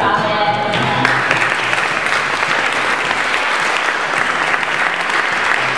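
Audience clapping, a dense steady applause that swells in about a second in.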